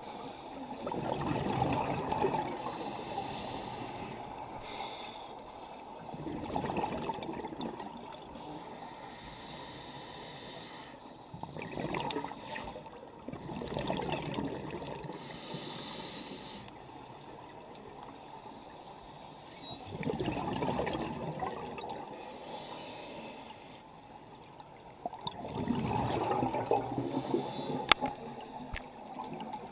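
Scuba regulator breathing underwater: bubbly exhalations surge and gurgle about six times, a few seconds apart, over a steady underwater wash. A single sharp click comes near the end.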